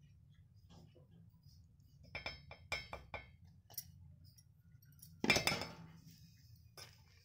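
Steel spoon clinking against a metal mixing bowl while stirring flour: a quick run of four short ringing taps about two seconds in, then one louder clink with a brief ring a little past five seconds.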